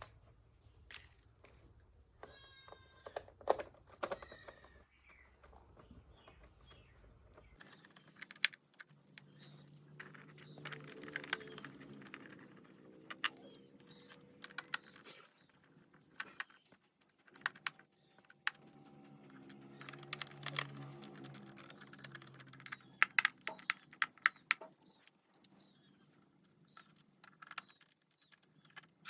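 Small screws being handled and driven into a laptop's plastic bottom cover with a screwdriver: irregular clicks and taps, some in quick clusters.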